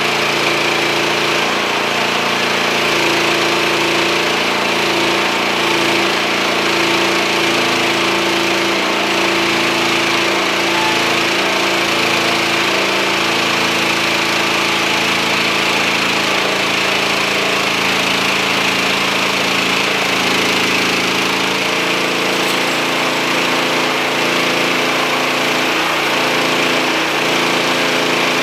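Hudson portable band sawmill running steadily, its engine under load as the band blade saws through a black walnut log; the engine note shifts slightly about three-quarters of the way through.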